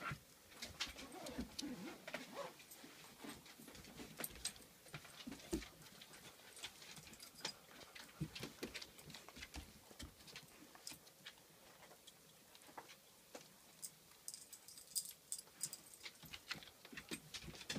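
A pomapoo puppy and a Pomeranian play-fighting: many quick clicks and scrabbles of claws on a wooden floor, with a few short growls about a second in.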